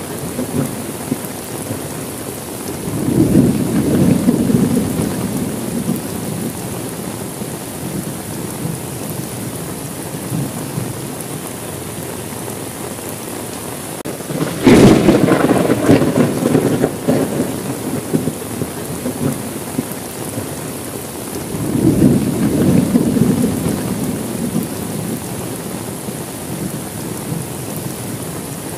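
Steady rain with three rolls of thunder. The first rumble comes a few seconds in. About halfway there is a sharp, close crack that turns into rumbling, and a third rumble follows about three-quarters of the way through.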